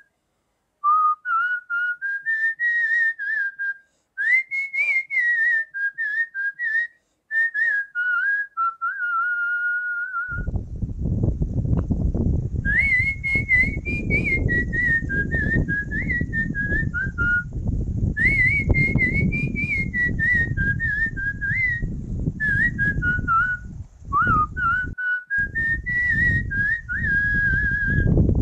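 A whistled tune: one person whistling a melody in short phrases with brief breaks. About ten seconds in, a steady low rumbling noise joins underneath.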